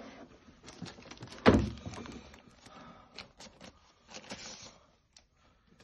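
Handling noises from a hard-shell carry case and its packing: rustling of a protective sheet and foam pad, scattered clicks, and one sharp knock about a second and a half in.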